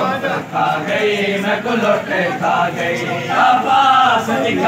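Crowd of men chanting together in unison, a Shia Muharram mourning chant at a matam gathering.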